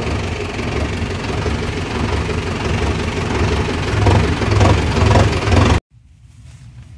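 Tractor diesel engine running under way, heard through its New Holland exhaust silencer, a steady low rumble that swells a little about four seconds in. It cuts off suddenly near the end, leaving only a faint background.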